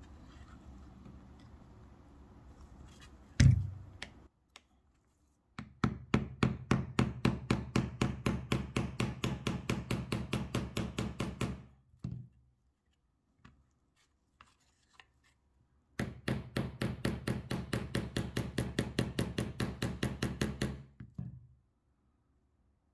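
Small hammer tapping a slotted roll pin into the base of a Bren 2 folding charging handle: one loud knock a few seconds in, then two runs of quick, even light taps, about four or five a second, each lasting several seconds.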